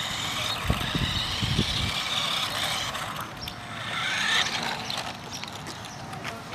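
Electric drive motor and gears of a Sharper Image X Bull Racer toy RC car whining as it drives over concrete, rising in pitch and getting louder about four seconds in as the car comes close. A few low thumps sound about a second in.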